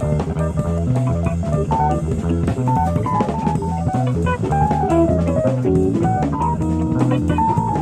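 Live jazz-fusion band, recorded off an FM broadcast onto cassette tape. An electric guitar plays fast single-note runs over electric bass and a drum kit, with one run falling in pitch about five seconds in.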